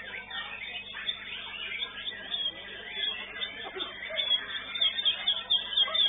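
Murai batu (white-rumped shama) singing: a dense run of short whistled phrases, breaking into quick, loud repeated notes about four seconds in.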